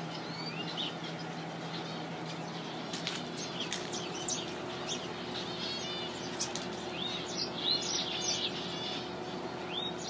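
A flock of small finches chirping and twittering in an aviary: many short high calls overlapping, growing busier in the second half, over a faint steady hum.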